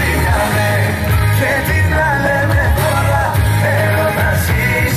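Music with a singing voice over a steady bass beat.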